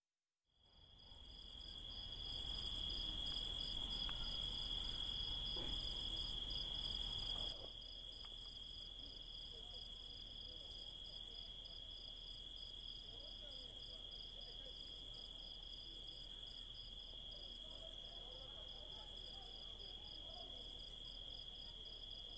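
Insects chirring in a steady chorus: a continuous high tone with a faster pulsing trill above it. It fades in from silence over the first two seconds and drops somewhat in level about seven and a half seconds in.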